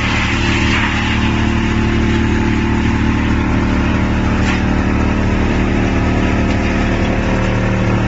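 Wood chipper running with a steady low hum, a log being fed through its rollers and cut into chips with a rough hiss that grows a little near the end.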